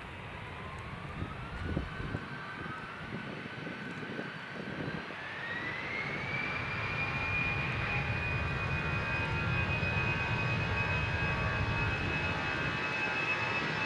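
Czech Airlines Airbus A319's turbofan engines spooling up for the take-off roll. A whine rises in steps over the first six seconds, then holds steady while the engine noise keeps growing louder.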